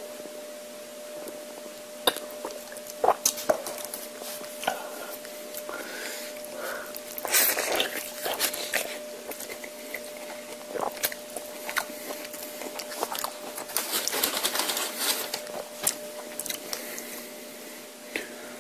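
A person eating close to the microphone: chewing with wet mouth clicks and sharp crunches of tortilla chips, with louder crinkly crackling about seven seconds in and again around fourteen seconds. A faint steady hum runs underneath.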